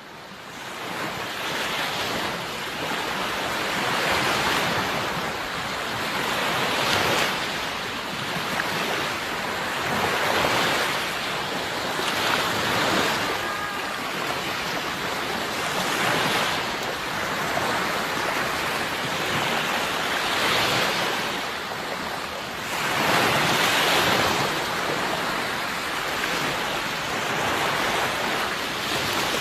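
Sea surf: waves breaking and washing in, a steady rush that swells and ebbs every few seconds. It fades in over the first couple of seconds.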